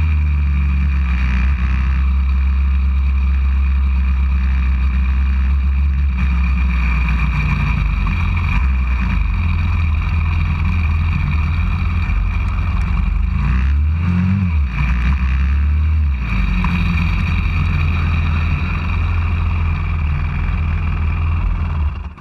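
190cc pit bike's single-cylinder four-stroke engine running, heard from the bike itself. Its note rises and falls a few times as it slows from the track into the paddock. The engine stops near the end.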